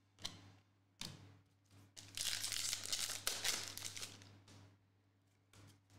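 Foil trading-card pack wrapper crinkling as it is torn open and handled: two short crackles, then about two seconds of continuous crinkling that fades out.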